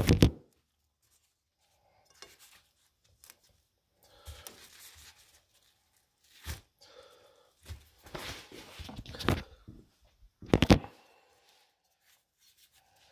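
Handling noise: scattered rustling and knocks, the loudest knock about ten and a half seconds in.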